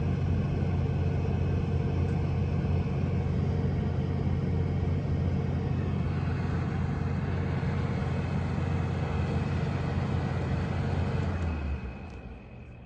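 LG 12,000 BTU air conditioner running with a steady low hum and fan noise. About eleven and a half seconds in, the hum stops and the sound falls away to a faint hum as the unit shuts down.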